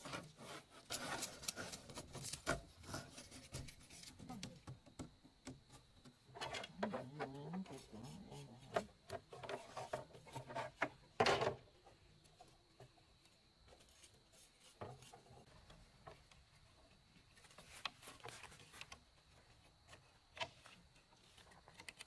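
Split bamboo strips rubbing, scraping and knocking against each other and the wooden floor as they are fitted together and tied into a frame. The handling noises come irregularly, with a sharp knock a little after eleven seconds and a quieter stretch in the middle.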